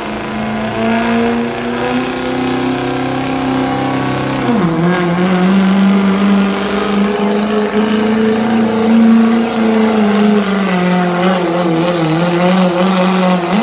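2003 Chevrolet diesel pickup's engine at full throttle dragging a pulling sled. Its pitch drops sharply about four and a half seconds in, then holds steady under heavy load until the engine falls away right at the end.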